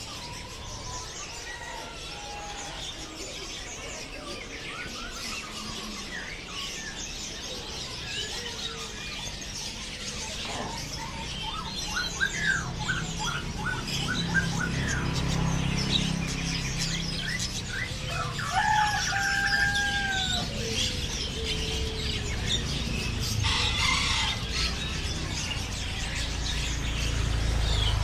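A crowd of caged birds chirping and calling over one another, many short overlapping tweets with a few clearer whistled calls about two-thirds of the way through. A low rumble runs underneath and grows stronger in the second half.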